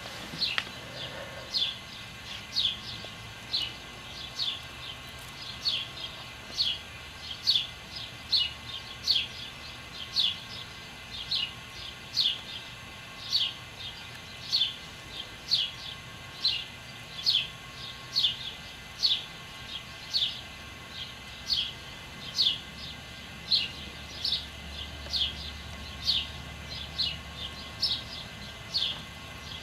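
A songbird repeating short, high, downward-slurred chirps, nearly two a second, over and over without a break in the dawn chorus.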